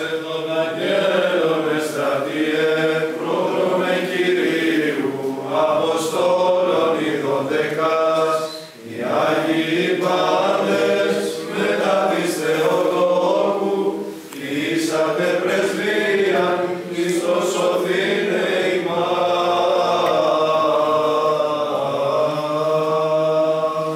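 Greek Orthodox Byzantine chant: a long, ornamented sung melody over a steady held drone note, with two short breaks for breath about nine and fourteen seconds in.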